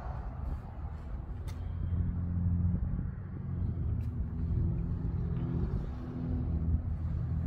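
Motor vehicle engine running: a low, steady rumble with a hum that swells and eases a couple of times, with a few faint clicks.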